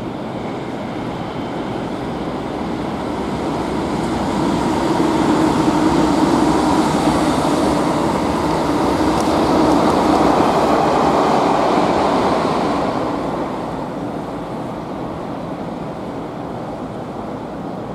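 JR East E259 series Narita Express train running past, its wheel-on-rail noise and Hitachi IGBT-VVVF traction motor hum swelling to a peak between about five and eleven seconds in, then fading away.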